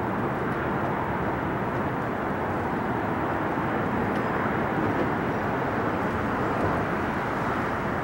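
Steady rushing roar of an Airbus A330's twin jet engines as it climbs away after takeoff, with wind buffeting the microphone.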